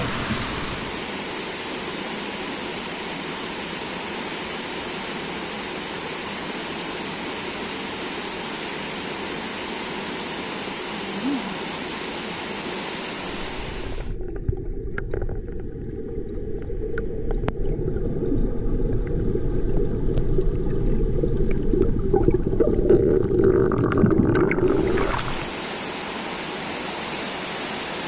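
Steady rushing of waterfall water. About halfway through, the sound turns muffled and dull, with scattered clicks and a louder, deeper churn, as the camera is submerged in the waterfall's pool. A few seconds before the end, the open-air rush of the falls returns.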